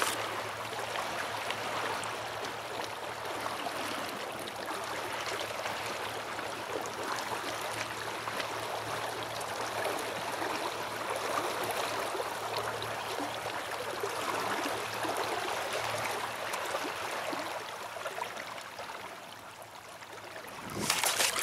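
Water rushing and splashing along the hull of an inflatable boat moving through choppy lake water, a steady wash of noise that dips briefly near the end. A faint steady low hum runs underneath.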